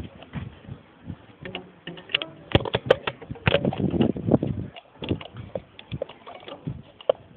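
Bicycle on a downhill ride over rough ground: irregular knocks and rattles, with a cluster of louder jolts near the middle.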